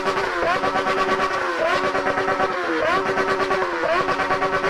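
Motorcycle engine being revved in repeated blips, about one a second, its pitch jumping up sharply and then sliding back down.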